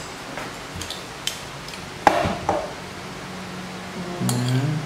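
White ceramic bowls and a spoon clinking and knocking lightly as a fried egg is slid out of one bowl onto a plate of rice, a few separate knocks, the loudest about two seconds in.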